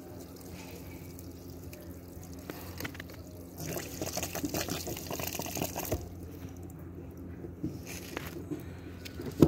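Water spurting from a burst CPVC water pipe and splashing onto wet ground, louder for a couple of seconds from about three and a half seconds in. Light knocks of plastic pipe fittings being handled.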